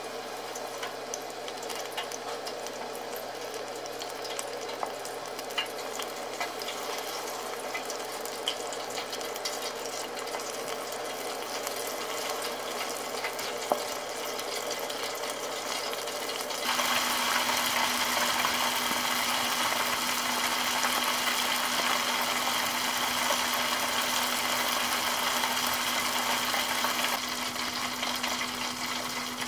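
Battered chicken pieces deep-frying in hot oil at 190 °C in an electric deep fryer: a steady sizzling hiss with a few faint clicks in the first half. About 17 s in the frying suddenly gets louder and brighter, easing a little near the end.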